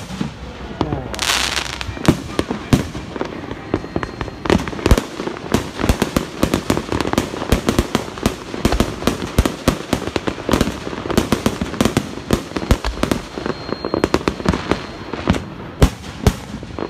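New Year fireworks display: aerial shells bursting in a rapid, continuous barrage of bangs and crackle, many reports a second, with a short hiss about a second in.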